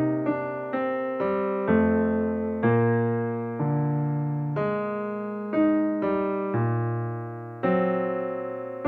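Background music: a slow keyboard melody on an electric-piano sound, single notes struck every half second to a second and left to fade.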